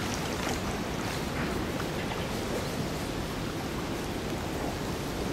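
Steady wash of water and light rain around a small pontoon boat on floodwater, with a few faint taps.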